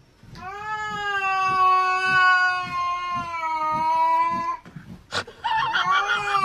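A cat yowling: one long, drawn-out call held at a steady pitch for about four seconds. A brief click follows, then a second yowl starts near the end.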